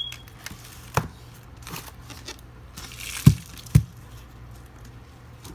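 Firework packages being handled: a click, a knock, a brief rustle of packaging, then two dull thumps about half a second apart as items are knocked or set down.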